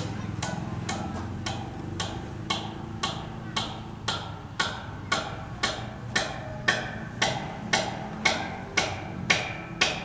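Hammer blows on a steel roof beam, a steady beat of about two strikes a second that gets louder in the second half. Faint voices run underneath.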